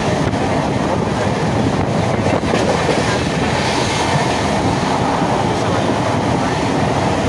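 Passenger train running at speed, heard from inside the carriage: a steady rumble and rush of wheels and air, with wind buffeting the microphone.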